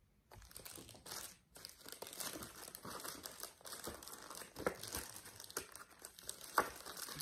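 Packaging of cross-stitch chart packets crinkling and rustling as they are handled and sorted, with sharp crackles. It starts about a third of a second in, and the loudest crackles come a little past halfway and again near the end.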